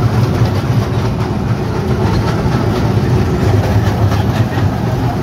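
Zoo tourist train running, heard from its open passenger car: a steady low rumble with faint, regular clatter.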